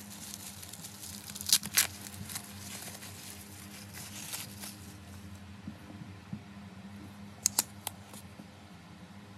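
Plastic bubble-wrap packaging crinkling and rustling as it is handled and squeezed, with a few sharp plastic snaps: two about a second and a half in and three more near the end.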